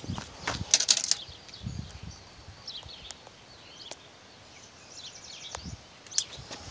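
Footsteps and handling rustles, mostly in the first second, with a few later thumps and a sharp click near the end. Birds chirp faintly in the background.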